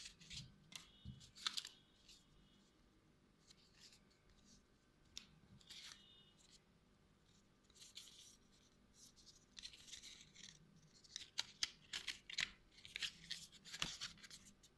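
Phone packaging being handled: scattered soft rustles, scrapes and small clicks of cardboard and plastic, busier in the second half.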